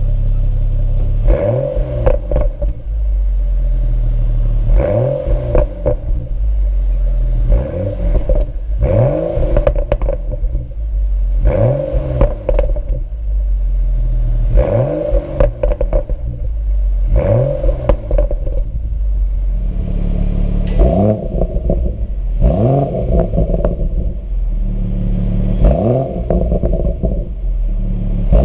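BMW 1 Series M performance car's turbocharged straight-six exhaust, revved again and again, each time rising sharply in pitch and then falling back, about every three seconds.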